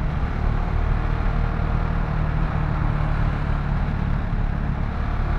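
KTM Duke 690 single-cylinder engine running steadily at an even engine speed, a low hum with no revving.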